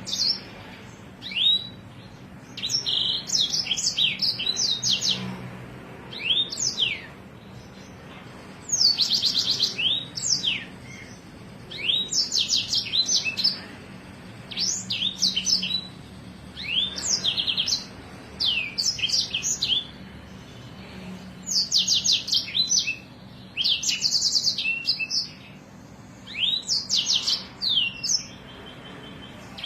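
Songbird masteran song: repeated phrases of rapid high rolling trills and sharp, steeply sweeping 'shooting' notes, each phrase a second or two long with short pauses between.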